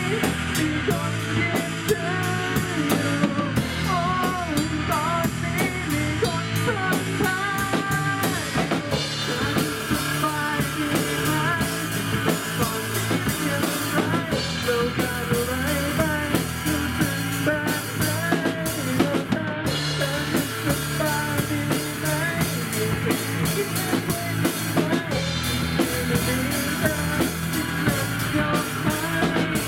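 Rock band playing: a drum kit with cymbals, electric guitar and a male singer on a microphone.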